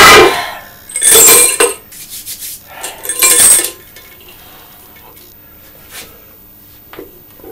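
An iron weight plate with a hub-lift pin clanks onto the rubber floor, then rattles and clinks twice more about one and three seconds in as the pin and plate are handled for a hub lift. A couple of faint ticks follow.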